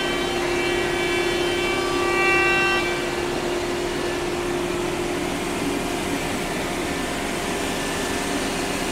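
Woodworking shop machinery running steadily: a constant mechanical hum with whining tones that shift over the first few seconds and swell briefly about two seconds in.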